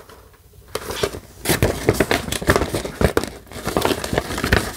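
Paper art sleeve crinkling and rustling against a plastic disc keep case as the case is handled, with sharp plastic clicks throughout after a brief quiet start.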